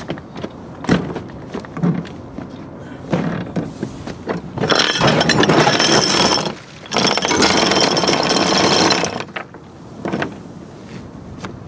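Anchor chain rattling out over the bow roller as the anchor is let go, in two long runs of about two seconds each with a brief pause between. Scattered clanks of chain being handled come before the runs and a few after.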